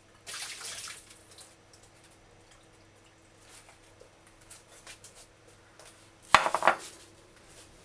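A ceramic plate clattering against the countertop as it is set down: a cluster of sharp knocks about six seconds in. A brief rustle near the start and a faint steady hum lie under it.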